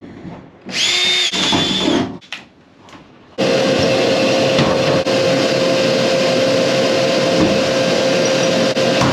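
A cordless drill whirs briefly about a second in, its pitch rising and then holding. Then a vacuum cleaner switches on and runs steadily, loud, with a constant whine over its rushing noise.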